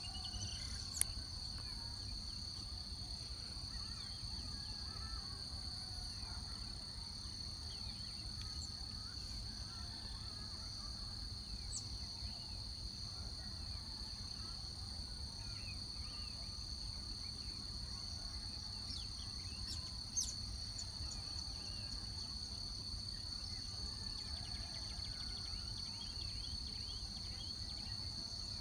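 Outdoor ambience: a steady, high-pitched insect trill over a low rumble, with faint scattered bird chirps. Two sharp clicks stand out, one about a second in and one about twenty seconds in.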